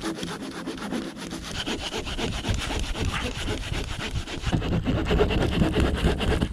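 Small hand saw cutting through a log in rapid back-and-forth strokes, growing louder from about halfway through.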